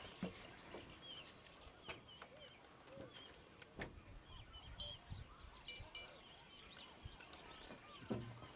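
Faint outdoor ambience with many short high bird chirps and calls, and a few scattered clicks.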